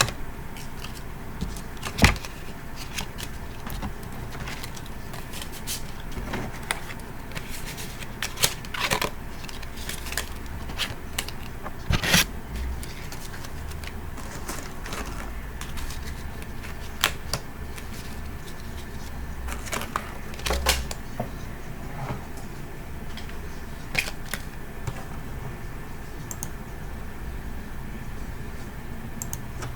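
Playing cards being handled: scattered irregular taps, flicks and rustles of cards, a few sharper clicks standing out, over a steady low background hum.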